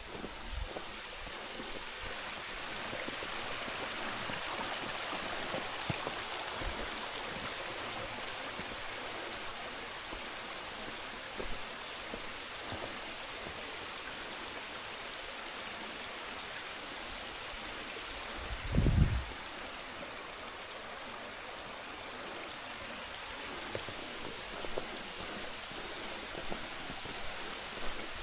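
Steady rush of flowing mountain water, with one brief low thump about two-thirds of the way through.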